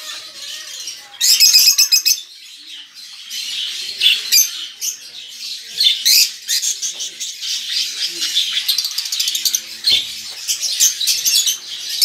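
Lovebirds chirping and squawking in quick, high-pitched runs, loudest just over a second in.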